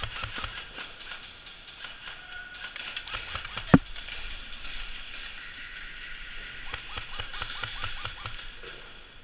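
Airsoft gunfire in an indoor game: scattered clicks and bursts of rapid ticking, with one sharp, loud crack about three and a half seconds in.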